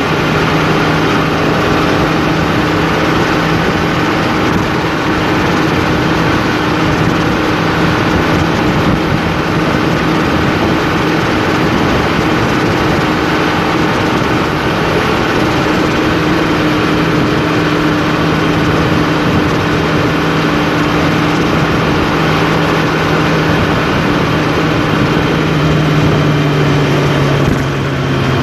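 Steady engine drone and road noise inside a moving vehicle's cab at highway speed. Near the end the engine note steps slightly lower.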